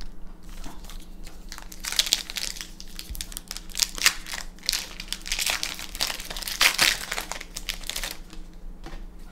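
Foil wrapper of a Magic: The Gathering Avacyn Restored booster pack crinkling as it is torn open by hand. The crinkling comes in quick, uneven spells, loudest from about two seconds in until near the end.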